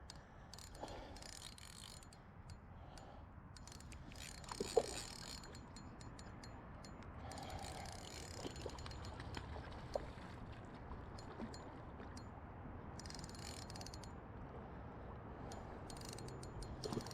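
Fishing reel clicking and whirring faintly as a hooked freshwater drum is played and line is worked in, with a couple of sharper ticks along the way.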